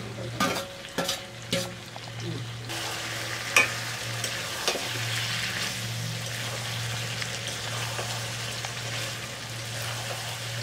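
Chicken kosha (spice-fried chicken curry), nearly done, sizzling in a metal kadai while a long metal spatula stirs it. Sharp clicks of the spatula against the pan come in the first couple of seconds and twice more a little later, over a steady sizzle.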